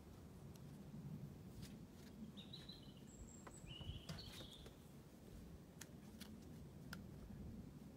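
Faint outdoor ambience with a few short bird chirps a little before the middle, and scattered faint ticks.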